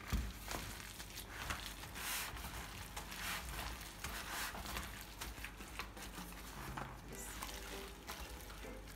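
Faint, irregular rustling and soft squishing: plastic-gloved hands working wet potato-and-yogurt dough out of a plastic bowl onto a baking tray.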